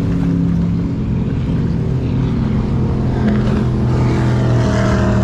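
Offshore powerboats running slowly at low throttle: a deep, steady engine rumble.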